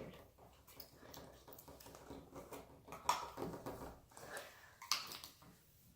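Quiet handling noises: soft clicks and rustles as slime is taken from its container and put into a cup, with slightly louder bursts about three and five seconds in.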